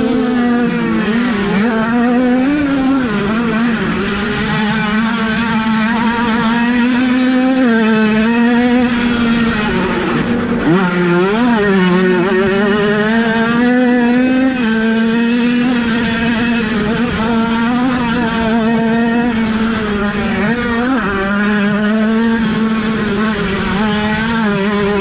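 Two-stroke engines of 50 cc mini motocross bikes running on the track, several at once, their pitch rising and falling as the riders rev through the course.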